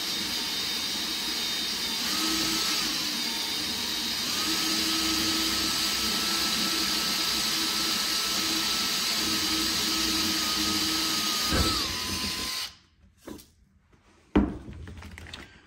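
Makita 18V cordless drill boring slowly through an aluminium gusset plate and frame, its motor whine rising slightly a couple of times. The whine drops and cuts off abruptly about thirteen seconds in, and a single sharp click follows about a second later.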